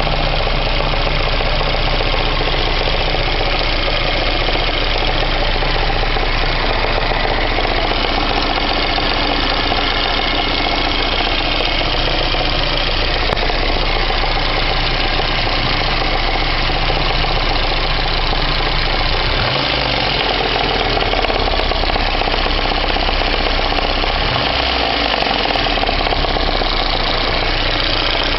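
VAZ-2109 (Lada Samara) engine idling with a knock, heard at full operating temperature: the knock does not go away once the engine is warm.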